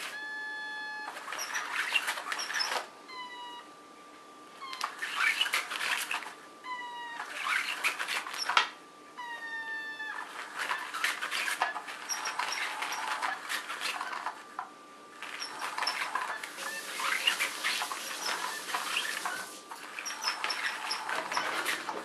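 Cat's Meow battery-powered cat toy running: its hidden wand scurries under the nylon skirt in bursts of rustling over a thin, steady motor whine. Several short descending chirps come in the first half.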